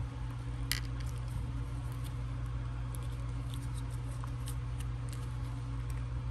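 Faint, scattered clicks and taps of plastic action-figure parts being handled, the clearest about three-quarters of a second in, over a steady low electrical hum.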